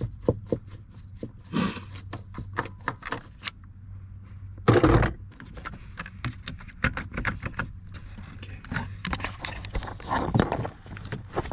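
Irregular clicks and rattles of plastic steering-column trim and wiring harness connectors being worked loose by hand, with one loud thump about five seconds in, over a steady low hum.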